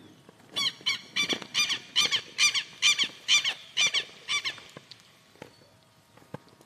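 A run of about a dozen short, shrill squeaks, roughly three a second for about four seconds, each note falling slightly in pitch.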